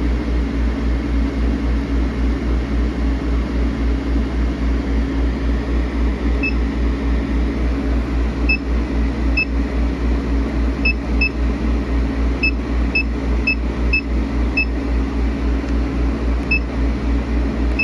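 Boss Laser cutter's fans and pumps running with a steady, evenly pulsing hum. From about six seconds in, about a dozen short single beeps come from its control-panel keys as the cutting speed is stepped up.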